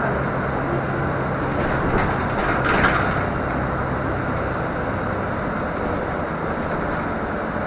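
Steady engine and road noise of a city bus heard from inside the cabin, with a low hum that fades about two seconds in and a short rattling clatter just after.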